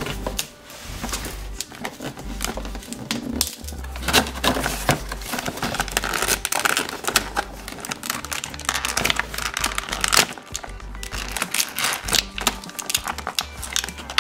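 Clear plastic toy packaging and cardboard crinkling and crackling in dense, irregular bursts as small figures are pulled out of a box, over background music.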